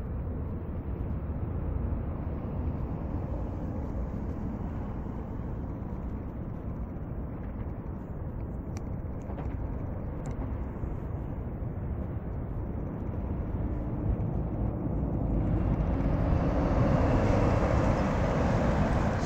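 Airbus A330 jet engines rumbling as the airliner moves along the runway. In the last few seconds the engines grow louder and a rising hiss joins the rumble, as at the spool-up for take-off.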